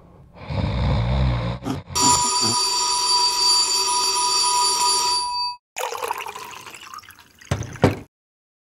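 A bell rings steadily for about three and a half seconds and cuts off abruptly. Before it comes a short rumbling noise. After it comes a fading hiss and two sharp knocks near the end.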